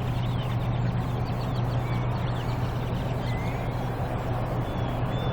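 A large flock of black birds calling, many short thin chirps scattered throughout, over a steady low hum and background noise.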